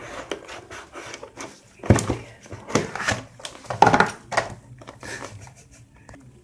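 A cardboard phone box being opened by hand: the lid is rubbed and slid off, with scraping and several sharp knocks as the box is handled, loudest about two and four seconds in.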